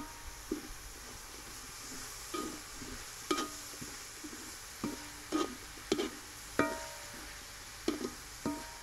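Vegetables sizzling in a large metal wok while a wooden spatula stirs them, knocking and scraping against the wok about nine times at an uneven pace. Each knock sets the wok ringing briefly.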